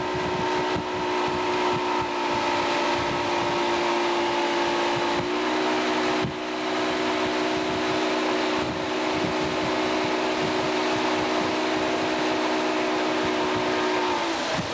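Motorboat engine running steadily while towing an inner tube. The pitch lifts slightly about five seconds in and drops near the end as the throttle eases, with wind buffeting the microphone and water rushing past.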